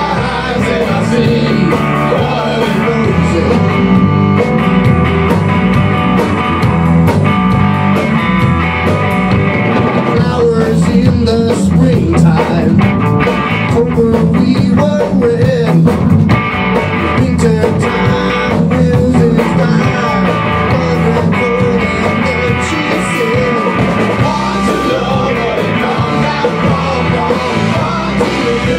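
Live rock band playing loudly and steadily: distorted electric guitars over a Tama drum kit.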